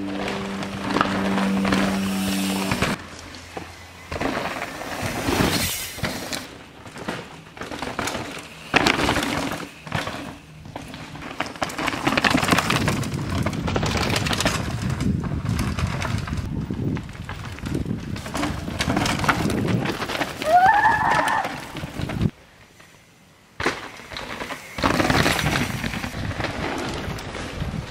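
Downhill mountain bikes passing over rock and dry leaves: knobby tyres crunching and skidding, with clattering and knocking from the bikes as they drop over rocks, coming in repeated swells as each rider goes by.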